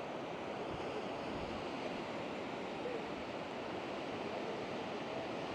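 Sea waves washing on the shore, a steady rushing noise with no clear single break.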